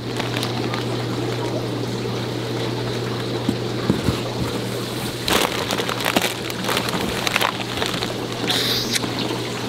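Steady rushing of aquarium filtration with a constant low hum, with a few brief rustles and knocks from handling plastic fish bags and styrofoam shipping boxes, about five seconds in and again near nine seconds.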